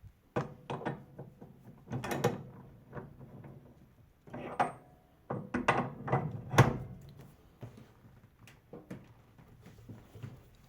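A series of irregular knocks, clicks and clanks of hard objects being handled and set down, the loudest about six and a half seconds in.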